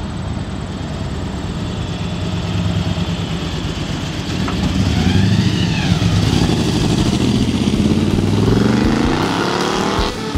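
Blown small-block Chevy V8 of a 1959 Chevrolet Apache pickup, running through headers and glasspack mufflers as the truck drives by. It grows louder as the truck passes about halfway through, and the pitch rises as it accelerates away near the end.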